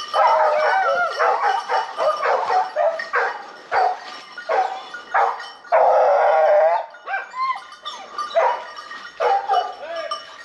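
Hunting dogs baying over and over in short yelping barks, with one longer drawn-out cry about six seconds in: the dogs are holding a wild boar at bay.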